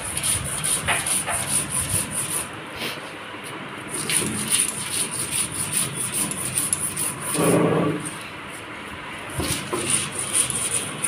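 Stone roller grinding mustard seeds, onion and dried chillies on a flat stone slab (sil-nora), making repeated gritty back-and-forth rubbing strokes as the spice paste is ground.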